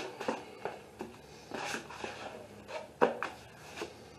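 A 10-inch drywall taping knife beating and scraping joint compound in a plastic mud pan: irregular clicks and knocks of the blade against the pan, with a longer scrape a little under two seconds in.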